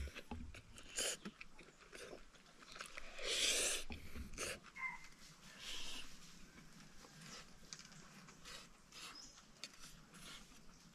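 Eating sounds: chewing and light clicks while eating fried rice, with one short, louder noisy sound about three seconds in.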